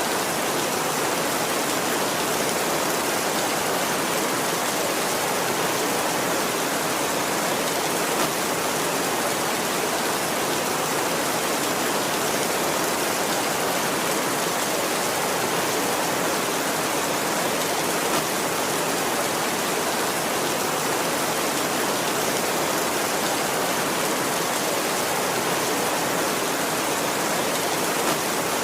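Heavy rain falling steadily on a tin roof, an even hiss that does not let up.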